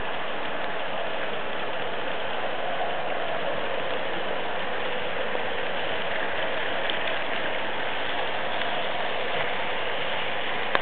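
Märklin H0 model trains running on the layout's metal track: a steady mechanical rattle and whir of small wheels and electric motors.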